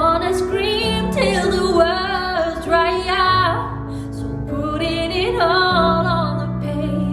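A woman singing a slow, tender song over held low accompaniment notes, her sustained notes wavering with vibrato; the phrases break off for a moment about halfway through.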